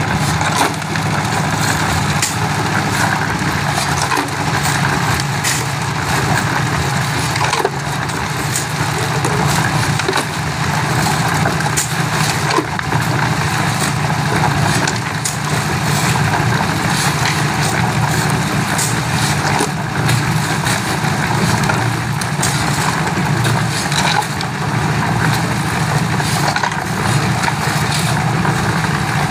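Portable concrete mixer running steadily: its small engine drones while gravel and wet concrete churn and rattle in the turning drum. Shovelfuls of gravel scrape and clatter as they go in, making frequent short knocks.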